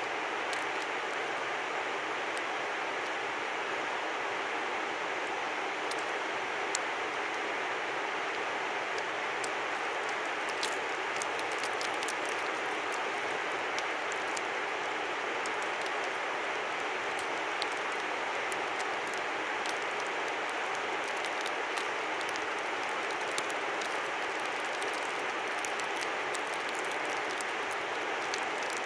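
A river rushing steadily, an even wash of water noise, with scattered light ticks over it, more of them in the second half.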